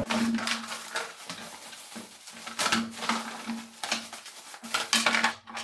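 Plastic bag crinkling and rustling as it is handled and opened, with irregular clatters of hard plastic parts knocking against a wooden tabletop.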